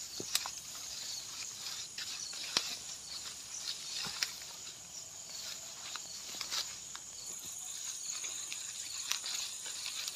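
Night insects chirring steadily in a high, thin band, with irregular footsteps swishing and crackling through grass and weeds.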